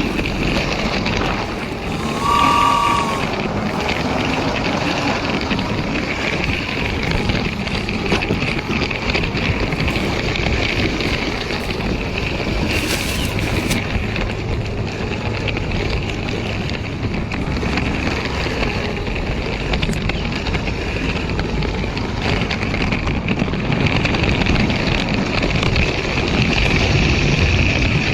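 Motorised Lego train running on its plastic track: a steady rattling rumble with a constant high whine. A brief two-note tone sounds about two and a half seconds in.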